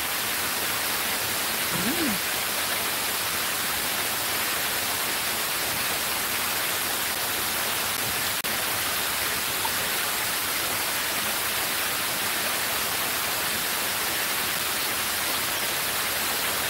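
Water pouring down the steps of a cascading fountain: a steady, even rush.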